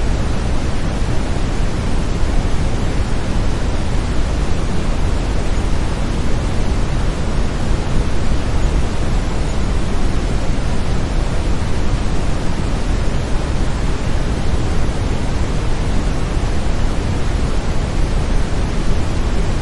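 Steady brown noise: an even, unbroken rumbling hiss that is heaviest in the low end.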